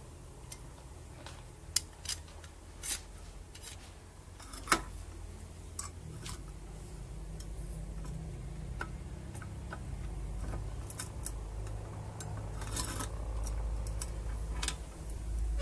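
Scattered sharp metallic clicks and taps as a homemade steel F-clamp is fitted and its screw handle turned, tightening its valve-head pad against a concrete block. A low rumble builds in the background from about six seconds in.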